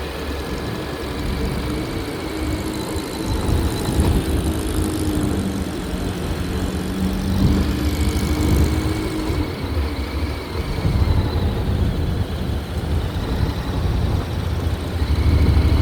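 Vehicle engines running with a heavy, steady low rumble, a faint engine hum and a few knocks, as vehicles drive off a ferry.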